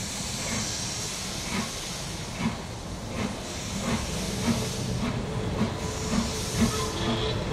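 BR Standard Class 4MT 4-6-0 steam locomotive pulling away slowly, its exhaust chuffing about once every half to two-thirds of a second and quickening slightly, with bouts of steam hissing from the cylinder drain cocks.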